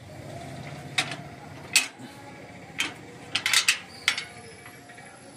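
The latch of a barred metal grille gate being worked by hand: sharp metallic clicks and clanks, several in quick succession about three and a half seconds in.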